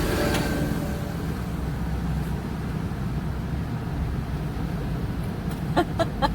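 Steady low road rumble inside a moving car's cabin. Near the end comes a quick run of short, sharp vocal sounds.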